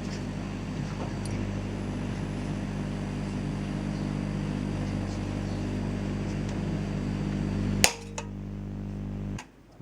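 Microwave-oven magnetron and its high-voltage transformer powered up, with a steady mains hum and buzz and a hiss over it while plasma burns in an incandescent bulb. A single sharp crack comes about eight seconds in, and the hum cuts off a second and a half later.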